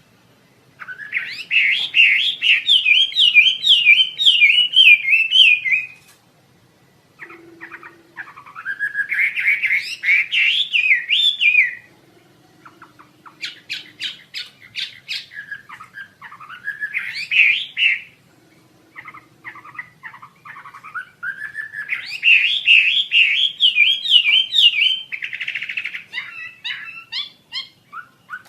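Wambi asia songbird singing: a series of loud, rapid warbling phrases several seconds long, each sweeping up and down, separated by short pauses.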